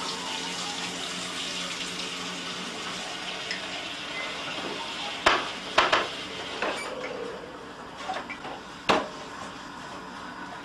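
Sharp clinks against ceramic mugs of egg dye, three close together about halfway through and one more near the end, over a steady hiss.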